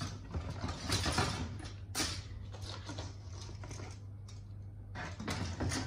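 Stacks of plastic model-kit runners clattering and rustling as they are handled and put into the kit box, with sharper clacks about a second in, at two seconds and near the end. A steady low hum runs underneath.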